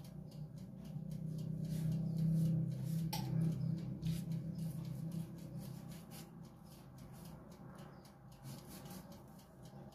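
Pastry brush swept repeatedly over rolled dough, spreading beaten egg wash in soft, quick scratchy strokes. Under it runs a low hum, loudest a couple of seconds in and fading toward the end.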